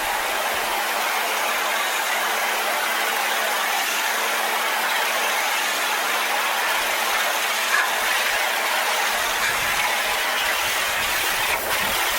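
Pressure washer running, its jet spraying steadily against corrugated barn tin as a steady hiss over the machine's constant hum.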